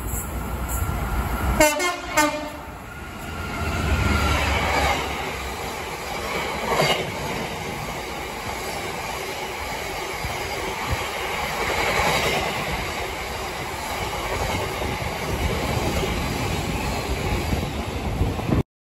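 A freight train's locomotive horn sounds one short blast about two seconds in. Then a long train of bulk tank wagons rumbles and clatters past on the track, and the sound cuts off suddenly near the end.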